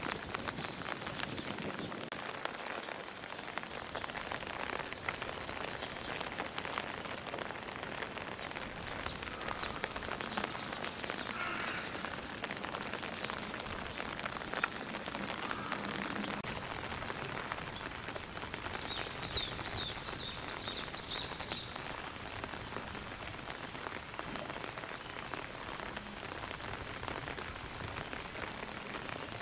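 Steady rain pattering on the ground and surfaces, a dense hiss of small drop ticks. About two-thirds of the way through, a bird gives a quick run of about seven short, high notes.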